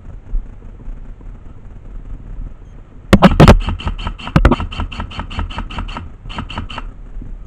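Airsoft gun firing: a few loud sharp cracks about three seconds in, then a steady string of shots at about six or seven a second, a short pause, and four more shots. A low rumble of wind on the microphone runs underneath.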